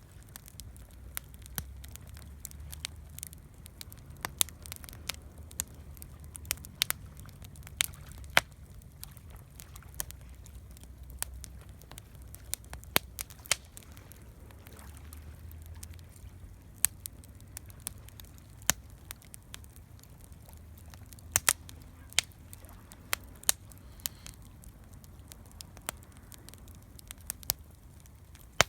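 Wood campfire crackling, with irregular sharp snaps and pops, several a second at times, over a low steady rumble.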